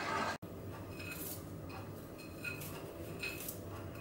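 Light clinks of a small dish and utensils at a cooking pot, five or six scattered taps.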